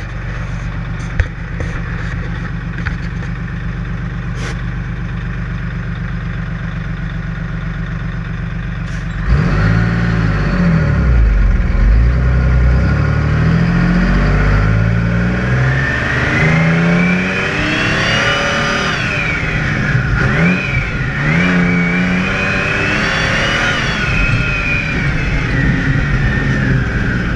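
A 1980 GMC Brigadier dump truck's Detroit Diesel 6V92 two-stroke V6, heard inside the cab with the engine cover off. It idles steadily, then about nine seconds in it revs up loudly and pulls away under load. Its pitch rises and drops several times as it climbs the driveway.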